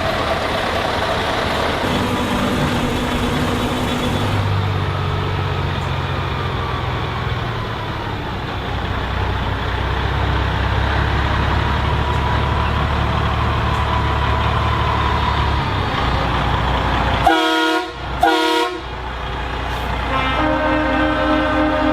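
Heavy truck diesel engines running as trucks drive past, then two short, loud truck horn blasts about 17 seconds in, followed by another horn sounding near the end.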